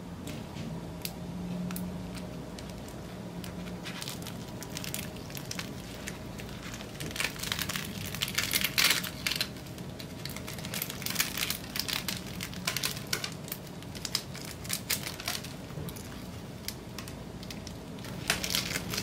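Baked rosemary focaccia torn apart by hand: the crisp crust crackles and crunches in a long run of small, quick cracks, loudest a little before halfway through.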